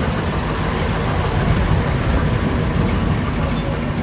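Cadillac Eldorado convertible's V8 engine running as the car rolls slowly past, a steady low rumble.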